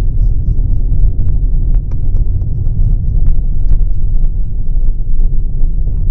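Steady loud low rumble of a car on the road, heard from inside the cabin, with faint scattered ticks.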